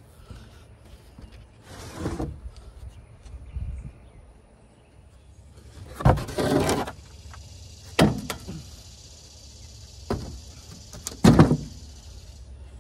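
Plywood sheets and wooden pallet boards being handled and laid into a pallet box: a series of wooden knocks and thuds, with a longer scraping thud about six seconds in and the loudest knock near the end.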